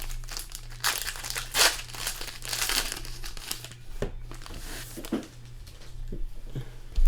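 Plastic wrapping crinkling and rustling in hand as trading cards are unpacked and handled, loudest in the first three seconds, with a few soft knocks and a thump at the end.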